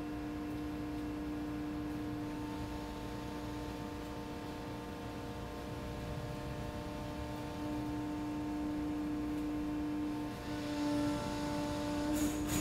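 Steady machine hum with several held tones as a powered ship's shell door swings shut, growing a little louder partway through. A sharp clunk near the end as the door reaches its frame.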